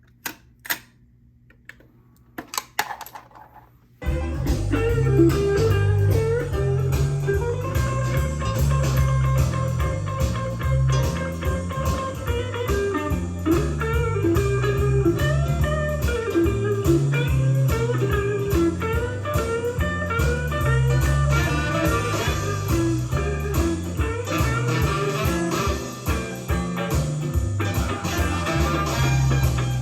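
A few sharp clicks, then about four seconds in guitar-led blues music starts abruptly with a steady bass beat: a tape playing back on a recapped Pioneer T-1100 cassette deck.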